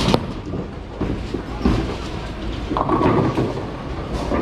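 Bowling ball dropped onto a wooden lane with a sharp knock at release, then rolling away down the lane with a steady rumble.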